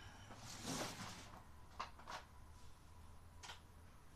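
Faint handling noises: a brief rustle about a second in, then a few light clicks and taps of hand tools in a plastic socket tray.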